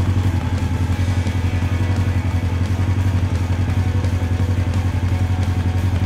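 Engine sound effect laid over a toy truck: a steady, low motor running with fast, even pulsing, like a vehicle idling.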